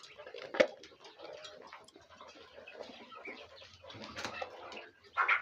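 Small poultry birds peeping and chirping in a busy, overlapping chatter, with a sharp tap about half a second in and a louder burst of sound near the end.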